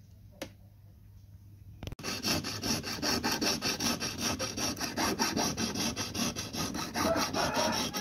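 Jeweller's piercing saw cutting a small block held on a wooden bench pin, in fast, even rasping strokes about five or six a second, starting about two seconds in after a faint stretch with a single light click.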